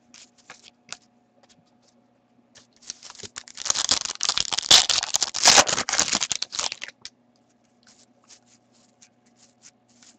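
Foil wrapper of a hockey card pack being torn open and crinkled for about four seconds in the middle, between light ticks of cards being handled.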